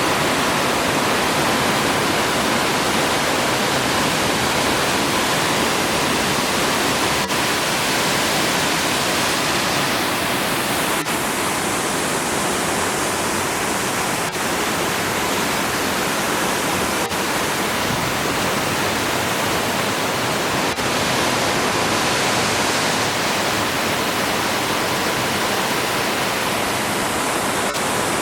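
Kings Creek Falls crashing down at its base: a loud, steady rush of falling water.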